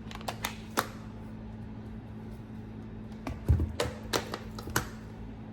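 Spice containers and seasoning being handled on a kitchen counter: a few sharp clicks and knocks, with a cluster and a dull thump past the middle, over a steady low electrical hum.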